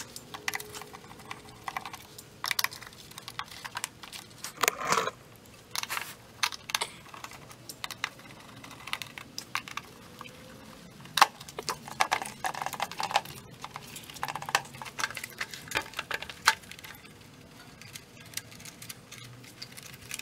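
Screwdriver clicking and scraping in the screws of a Ninja OP301 pressure cooker's plastic base housing as they are backed out, with irregular small knocks and taps of the plastic shell being handled.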